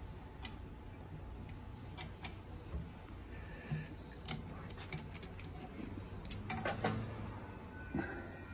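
Scattered small metallic clicks and taps from handling the bobbin case and bobbins in the hook area of a Consew 369RB-2 double-needle sewing machine, with a quick cluster of clicks about six to seven seconds in.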